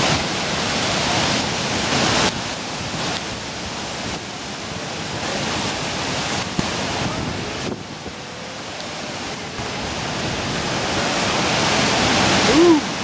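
Whitewater of a river falls rushing steadily, a thick, even roar of pouring and churning water. A brief voice-like cry rises over it near the end.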